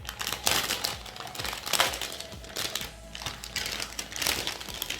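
Plastic packaging crinkling and rustling in irregular bursts as it is opened and pulled off a new keyboard.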